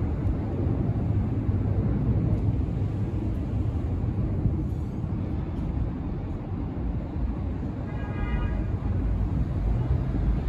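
Steady low rumble of city traffic and a distant train below an elevated subway platform, with a brief high-pitched tone about eight seconds in.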